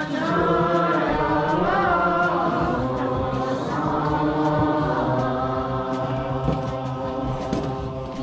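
A group of people singing together in unison, a slow chant-like song with long held notes. The singing fades near the end.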